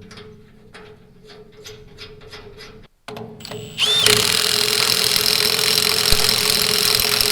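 A power tool starts up about four seconds in and runs steadily and loudly. Before it come a few seconds of light clicks, about three a second.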